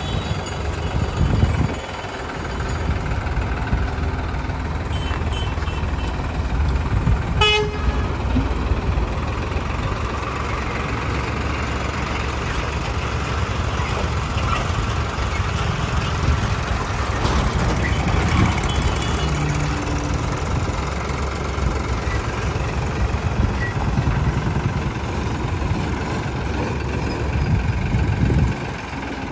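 New Holland 3630 tractor's three-cylinder diesel engine running steadily. A vehicle horn toots briefly about seven seconds in.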